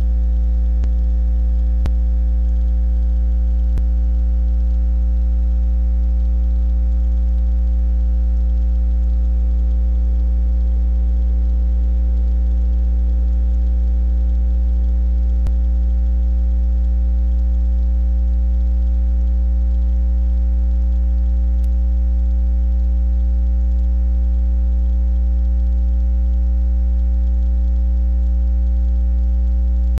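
Steady electrical mains hum: a loud low buzz with a stack of overtones, unchanging throughout, over a faint hiss with a few faint ticks.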